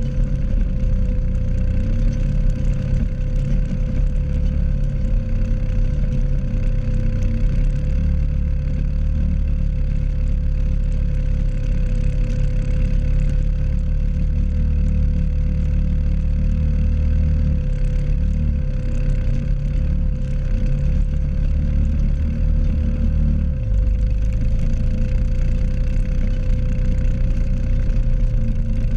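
Honda 500 FA ATV's single-cylinder engine running steadily while pulling a spring-tine cultivator through the soil, with a steady high whine over the engine's low rumble. The engine note shifts briefly about three-quarters of the way through.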